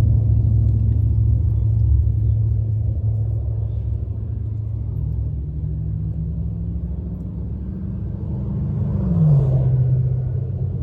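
Low rumble of a motor vehicle with a steady engine hum. About nine seconds in it swells and its pitch drops as the vehicle passes.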